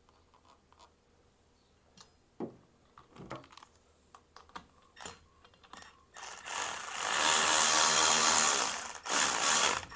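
Cordless electric ratchet running a bracket bolt into the airbag's riv nut: a steady motor whine for about three seconds, then a second shorter run near the end. Before that, a few light knocks of parts being handled.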